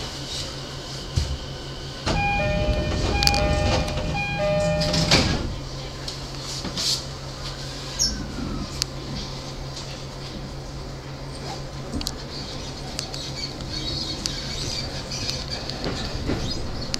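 Train door-closing chime: two alternating notes repeated for about three seconds over the noise of the doors, ending with a thump as they shut. A steady low electrical hum from the standing train follows.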